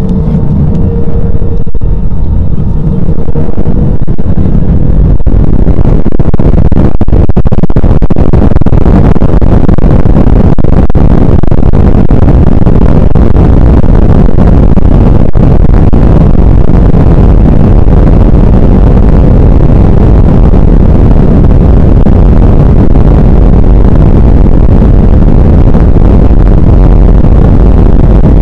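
Airbus A320's jet engines at takeoff thrust, heard from inside the cabin during the takeoff roll: a faint rising whine as the engines spool up, buried within a couple of seconds by a loud, steady rumble of engine and runway noise that holds to the end.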